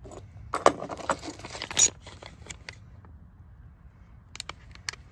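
Clear plastic bag crinkling in a hand, with the stainless turnbuckle and D-ring tie-down inside clinking. The rustling is densest from about half a second to two seconds in, and a few light ticks follow near the end.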